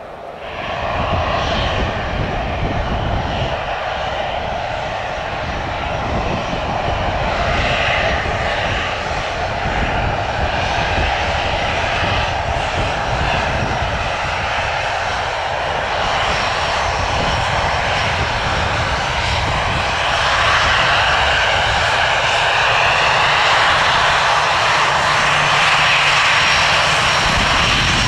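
Airbus A320's twin jet engines running with a steady, loud rush, growing somewhat louder about twenty seconds in.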